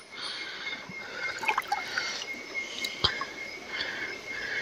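Water dripping and trickling with small irregular splashes and a few sharp clicks, over a steady high insect trill.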